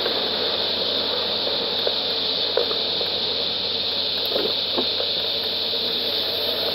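Steady hiss of cabin and road noise in a Hyundai Sonata V6 rolling slowly with its engine barely above idle, with a few light clicks.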